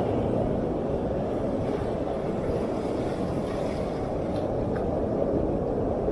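Atlantic surf: waves breaking and washing up the beach in a steady low rush, with no break in the sound.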